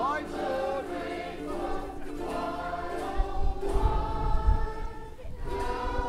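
Music with a group of voices singing together in sustained notes. A low rumble joins in about three seconds in.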